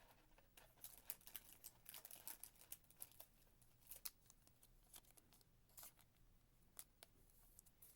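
Faint rustling and light clicking of trading cards and pack wrappers being handled, with scattered small ticks throughout.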